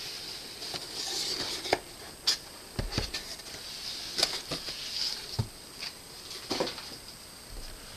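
Packaging of a trimmer being handled: scattered light taps, clicks and rustles of the box and wrapping.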